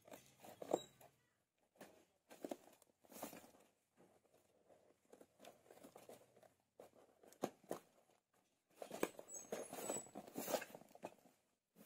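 Miniature kitchen pieces and their packaging being handled during unboxing: intermittent rustling, light scraping and small taps, with a sharper click about a second in and busier handling near the end.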